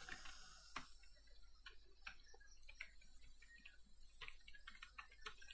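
Faint computer keyboard typing: scattered, irregular keystroke clicks, bunched in short runs.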